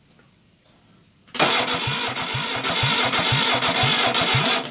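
Starter motor cranking a four-cylinder Reliant engine without it firing, for about three seconds from about a second and a half in, with an even beat about three times a second. The cranking sounds as if the battery is getting a bit weak, and the compression gauge on the cylinder under test reaches only 30, too low, which the owner puts down to a valve not seating correctly.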